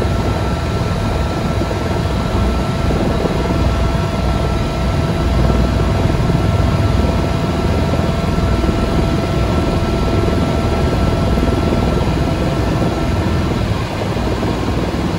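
Tour helicopter's turbine engine and rotor running steadily, heard from inside the cabin, with a low rumble and a steady whine. The whine stops near the end and the sound gets slightly quieter.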